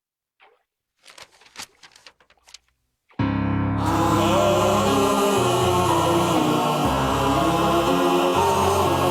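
Near silence with a few faint short noises, then about three seconds in loud choir-like music starts and carries on: held sung chords over a steady bass.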